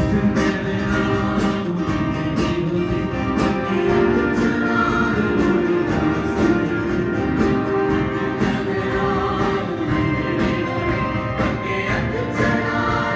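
Church choir singing a gospel song over instrumental accompaniment with a steady drum beat.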